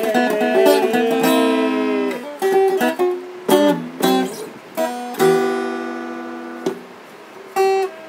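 Steel-string acoustic guitar being strummed: a ringing chord for about two seconds, then a string of separate strummed chords, one held and fading, and a short final stab near the end, closing out the song.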